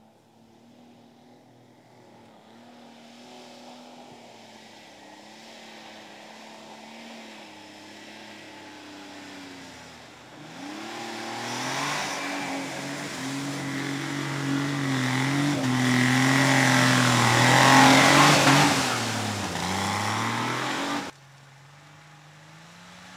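Off-road 4x4 engine labouring through mud, its pitch rising and falling. About ten seconds in it gets much louder and revs hard as the vehicle ploughs through deep water with heavy splashing. Near the end it cuts abruptly to a quieter engine.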